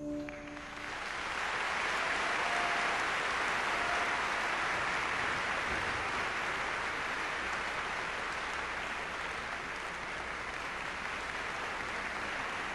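Audience applauding at the end of a skating program, swelling over the first couple of seconds and then easing slowly. The program music dies away just at the start.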